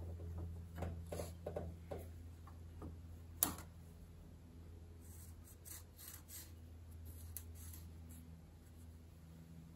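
Quiet hand-work sounds: a steel bracket shifting and rubbing against the Jeep's frame and a marker scratching on metal, with scattered soft clicks and one sharp click about three and a half seconds in, over a low steady hum.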